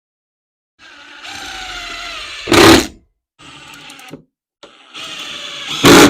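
Cordless power driver running screws in three short spells, its motor whining steadily. Each of two spells ends in a much louder, sharp burst about two and a half seconds and six seconds in.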